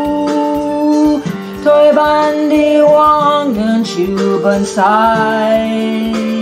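Background music: a song with a singing voice over guitar accompaniment.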